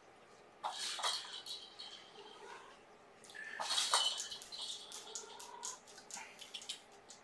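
Light clattering and quick clicks of small hard objects knocking together, in two louder bursts about a second in and around four seconds in, with scattered clicks between and after.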